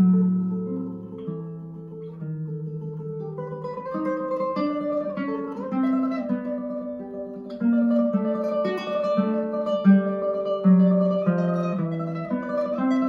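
Classical guitar played solo with nylon strings: a melody of plucked notes over held bass notes, getting louder and busier in the second half with quicker runs.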